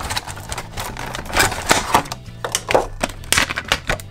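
Clear plastic blister packaging crinkling and clicking as a die-cast toy truck is worked out of it, a quick irregular run of sharp crackles and clicks. Background music with steady low notes plays underneath.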